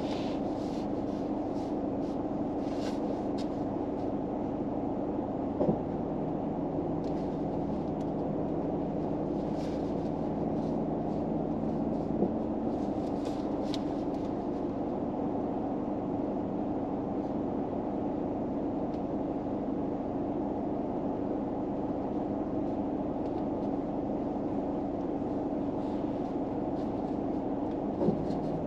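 Steady low hum inside a car's cabin, like an engine or heater running, with a lower tone joining for several seconds about six seconds in and a few soft clicks.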